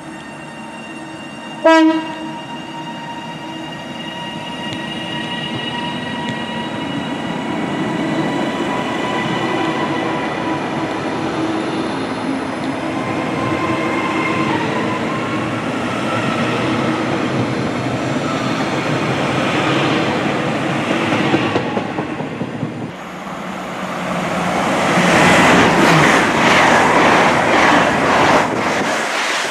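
TransPennine Express Class 397 electric train sounding a short horn blast about two seconds in, then pulling away past the platform, its motors whining in several tones that rise slowly as it picks up speed. Near the end, after a cut, a loud rushing roar as an LNER Azuma pair of Class 800 and 801 units runs past close by.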